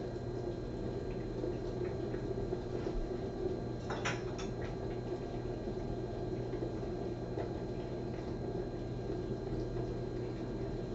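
Steady low background hum (room tone) with scattered faint clicks, and a brief crackle of clicks about four seconds in.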